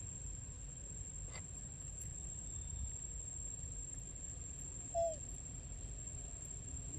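A single short animal call, falling in pitch, about five seconds in, over a low steady rumble and a constant high-pitched whine.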